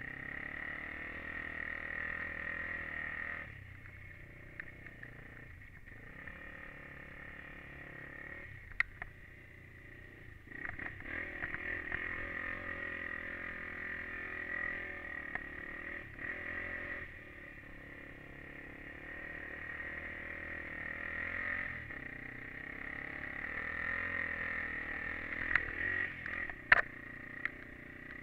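Honda 400EX ATV's single-cylinder four-stroke engine running under a rider, the throttle opening and easing off several times: loud at first, dropping a few seconds in, picking up again around the middle, easing off, then building toward the end. A few sharp clicks come near the end.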